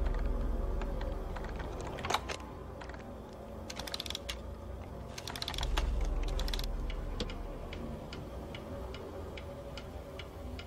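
Ornate mantel clock being wound with a key: irregular runs of small ratcheting clicks from the clockwork, over a low droning film score that swells twice.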